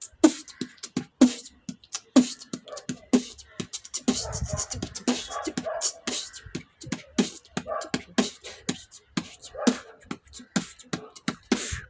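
Vocal percussion: a person beatboxing a drum rhythm with the mouth, a quick run of sharp clicks and low thumps.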